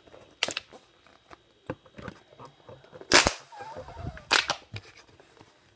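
A thin plastic water bottle crackling and snapping in sharp clicks as it is squeezed while being drunk from. The two loudest snaps come about three seconds in and again a second later.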